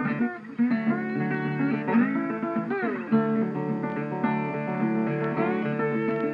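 Background music: guitar playing with bent notes and a steady strum.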